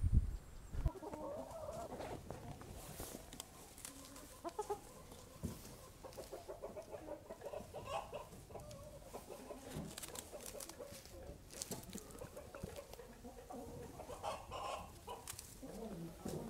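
Domestic hens clucking in quick runs of short notes, with a few light knocks in between.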